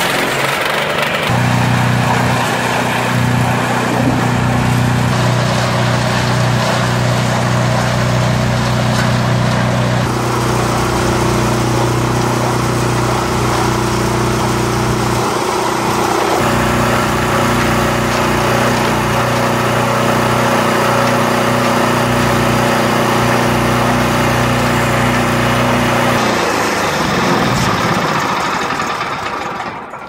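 Small single-cylinder engine of a 400-litre Menegotti concrete mixer running steadily and turning the loaded drum, with a grinding mechanical clatter over the engine hum. Near the end the engine slows and stops.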